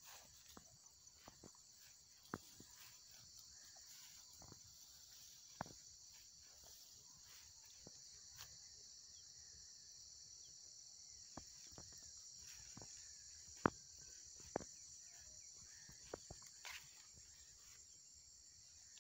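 Steady, faint, high-pitched chirring of field insects such as crickets, with a few scattered sharp clicks, the loudest about two-thirds of the way through.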